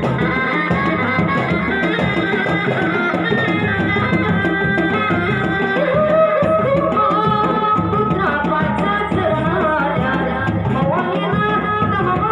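Sundanese reak ensemble playing: handheld drums beaten with sticks in a fast, dense rhythm, with a wavering melody line over the drumming.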